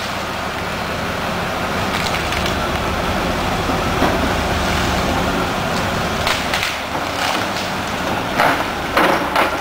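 Cat 328D excavator's diesel engine running steadily while it knocks down trees, with wood cracking and splintering over it; the snaps come thicker toward the end.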